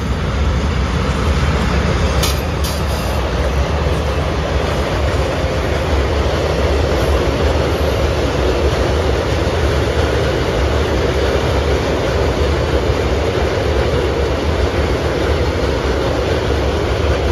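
Freight train of tank wagons rolling past close by: a steady, loud rumble of wagon wheels on the rails, with a few sharp clicks about two seconds in.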